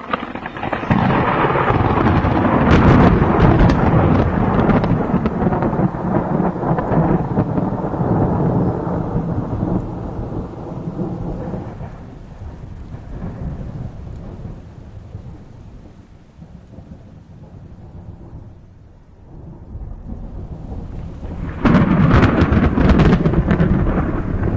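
Thunder with rain: a loud, long roll of thunder that slowly dies away over about fifteen seconds, then a second loud clap breaking in suddenly near the end and rumbling on.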